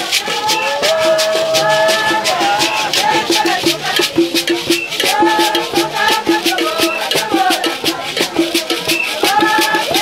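Njang traditional dance music: voices singing a melody over hand rattles shaken in a steady, fast rhythm, with a short pitched note repeated in time beneath them.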